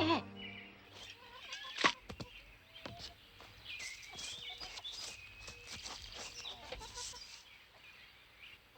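Faint chickens clucking, with scattered sharp clicks and knocks, the loudest about two seconds in.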